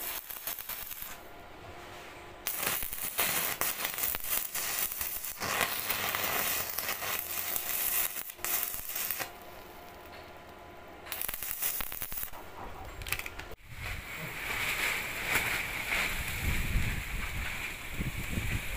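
Stick (arc) welding on mild-steel rebar: the electrode arc crackles and sizzles in several runs of a few seconds each, with short pauses between beads. The crackle cuts off sharply about three-quarters of the way through, and a rough, wind-like outdoor noise follows.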